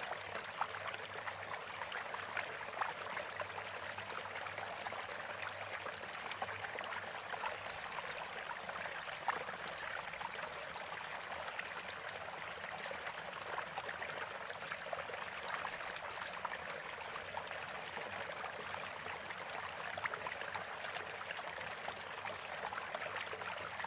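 Steady rushing water like a running stream, with fine crackles through it: a masking track of the kind used in subliminal recordings.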